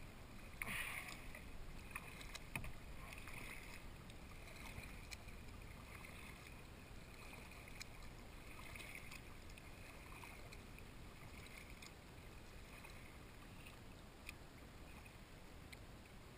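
Kayak paddle strokes: faint splashing of the paddle blades dipping into and lifting out of calm shallow water, a stroke about every second and a half, the loudest about a second in.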